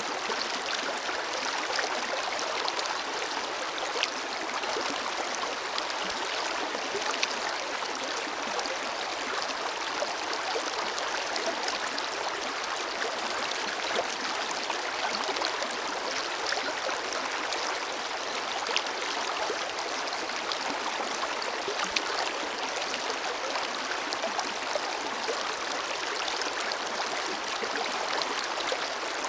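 Forest river flowing steadily over rocks: an even rushing of water with many small splashes and gurgles.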